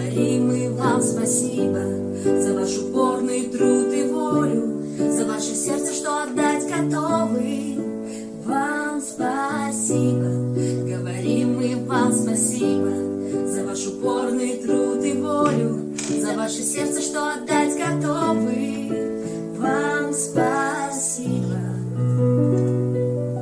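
Piano played in sustained chords, with a girl and a woman singing a song in Russian over it.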